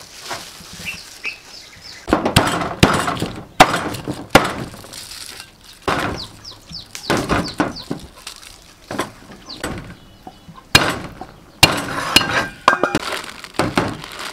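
Cleaver chopping lemongrass on a thick wooden chopping board: a run of sharp, irregular chops with a metallic clink, starting about two seconds in and going on until near the end.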